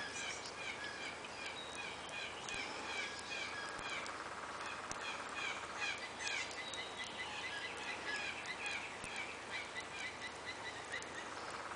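A songbird singing a run of short, quick chirps, about three a second, with a short break about halfway, over a few faint clicks.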